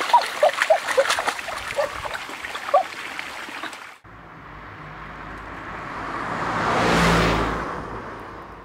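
Hands splashing and grabbing in a shallow stream, sharp splashes and small plops over the running water. After a sudden cut, a smooth whoosh swells up to a peak and fades away.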